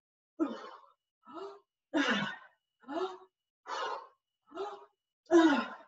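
A woman's forceful voiced exhales, exertion breathing in time with a seated cardio crunch: about seven short breaths a little under a second apart, each falling in pitch, the last one near the end the loudest.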